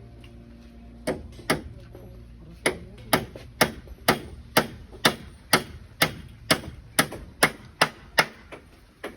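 Hammer blows struck at a steady rhythm of about two a second, starting about a second in, each a sharp knock with a short ring.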